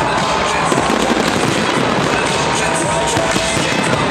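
Fireworks display bursting and crackling densely and without pause, with music playing along.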